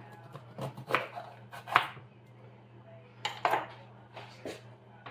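A kitchen knife knocking on a cutting board a handful of times at an uneven pace while peppers are cut open, over a steady low hum.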